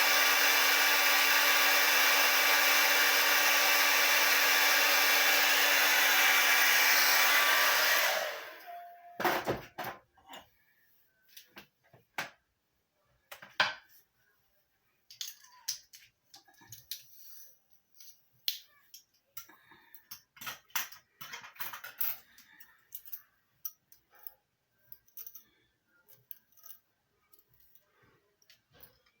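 Handheld hair dryer blowing steadily, then switched off about eight seconds in. After it stops come scattered small clicks and handling noises.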